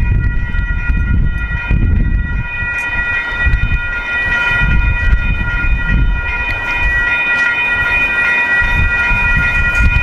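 Railroad crossing bells ringing steadily over the low rumble and clatter of a freight train's cars rolling slowly through the crossing.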